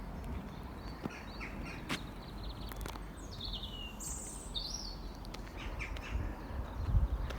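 A small songbird singing two short bursts of high, falling chirps over a steady outdoor background hiss, with a few sharp clicks and some low thumps near the end.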